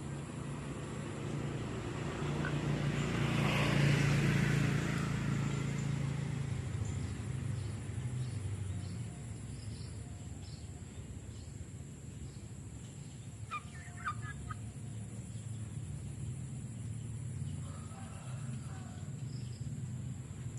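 Chicken clucking in two short bouts, one about two-thirds of the way through and another near the end, over a steady low hum. A rushing noise swells and fades in the first few seconds.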